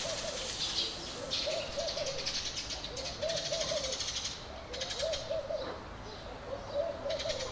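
A dove cooing: a short low phrase of several soft notes, repeated about every second and a half. Bursts of high, rapid chirping come in between.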